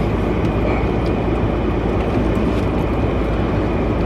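Steady low rumble with a hiss over it, the sound of a running vehicle, with a few faint ticks.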